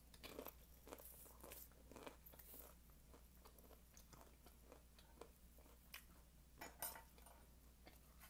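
Quiet, irregular crunching of a crisp fried taquito being chewed close to the microphone. The crunches are thickest in the first few seconds, with a few sharper ones a little over a second before the end.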